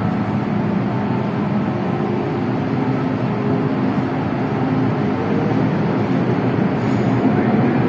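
Hong Kong MTR underground train running at the platform, heard through the platform screen doors: a steady rumble with a low hum, growing a little louder near the end.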